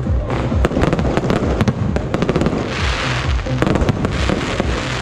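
Aerial fireworks barrage: shells bursting in rapid succession, many sharp bangs with crackling, and a thick stretch of crackle about three seconds in.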